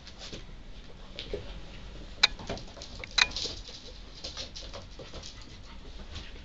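Two puppies, a Yorkshire terrier and a larger brown pup, playing: paws pattering and claws clicking on the wooden floor and rug as they scuffle, with two sharp clicks a little after two and three seconds in.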